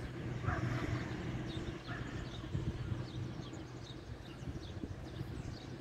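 Many faint, high chirps of small birds over a steady low hum.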